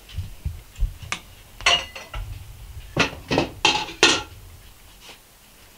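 Metal spoon scraping and clinking against a ceramic baking dish while spreading mashed potato, in a series of short strokes, the loudest cluster about three to four seconds in.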